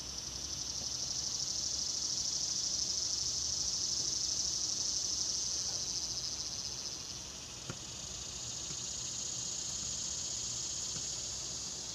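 Insects buzzing in a steady high-pitched chorus that swells, dips about seven seconds in, then builds again. A single faint knock sounds partway through.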